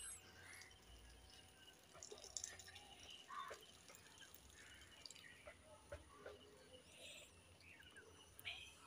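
Near silence: faint open-air ambience with a few faint, scattered chirps.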